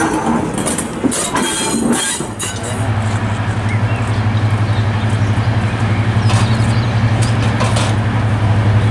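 A railway brake van rolls past with wheel clatter and clicks for the first couple of seconds. Then comes the steady low drone of an approaching diesel locomotive's engine.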